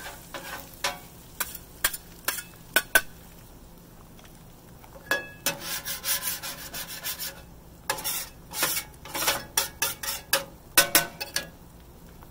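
Metal spatulas scraping and clacking on the steel top of a Blackstone flat-top griddle: short spells of sharp clacks and scrapes, with a longer stretch of steady scraping about halfway through.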